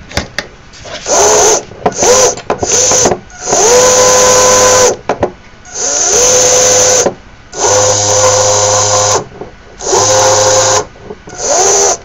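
fischertechnik power motors (small geared DC motors) whirring in about eight short runs, switched on and off by a joystick, the longest about a second and a half. Some runs rise in pitch as the motor spins up.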